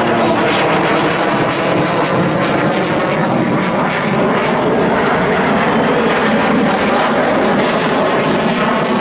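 Loud, steady jet noise of an F-16 fighter flying overhead and banking through its display turns.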